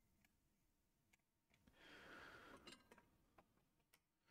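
Near silence: room tone, with a faint short hiss about two seconds in.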